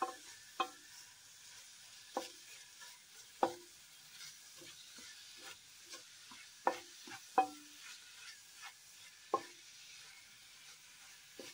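Wooden spatula stirring chopped spinach frying in an aluminium pot, over a faint sizzle. About eight or nine knocks of the spatula against the pot come at irregular intervals, each ringing briefly.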